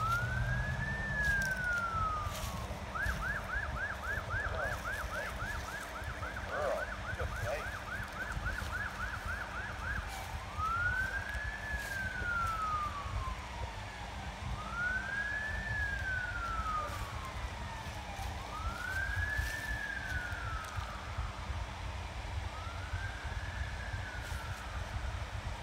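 Emergency vehicle siren in a slow wail, rising and falling about every four seconds. A few seconds in it switches to a fast yelp of about four sweeps a second, then goes back to the slow wail about ten seconds in.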